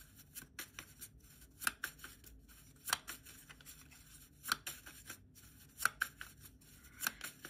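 A deck of oracle cards being shuffled by hand: a quiet run of short, irregular card clicks and slaps, about one or two a second.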